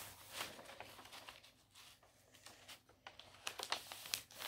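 A sheet of paper being folded and creased by hand: soft rustling with scattered crisp crinkles, thickest a little after three seconds in.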